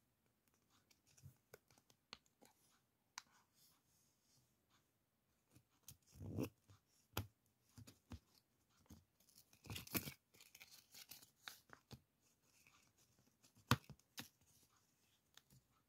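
Faint, scattered crackling and rustling of clear printed decorative tape being peeled off its roll and handled, with a few sharp ticks; the louder crackles come a little after 6 s, around 10 s and near the end.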